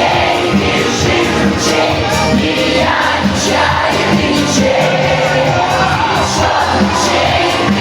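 Live concert music: a Russian folk-pop song sung with band accompaniment over a steady beat, with audience noise mixed in.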